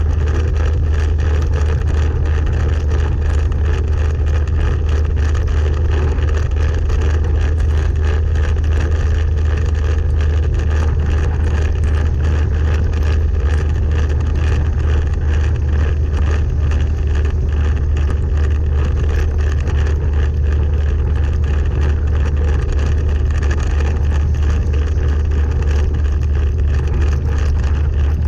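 Moving vehicle on a wet road in the rain: a steady, loud low rumble of wind and road noise with the engine running, unchanging throughout.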